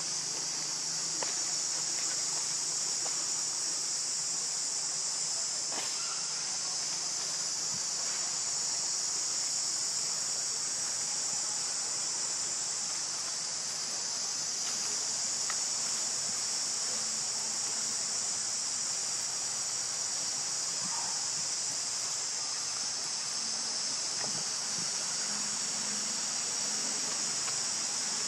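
A steady, high-pitched chorus of insects droning without a break, with a few faint clicks in the first several seconds.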